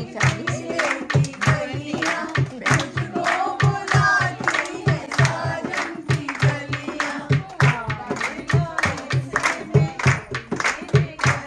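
Dholki singing: voices singing a folk song over a dholak drum that keeps a steady beat of about three low strokes a second.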